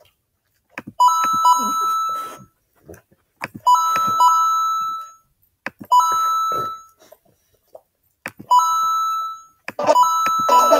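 A two-note chime, struck twice and ringing out for about a second, heard five times about every two and a half seconds.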